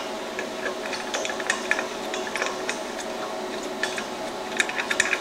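Gloved hands unscrewing a brass gas regulator's inlet nut from an argon cylinder valve: a scatter of light metallic ticks and rubbing from the threads and fittings.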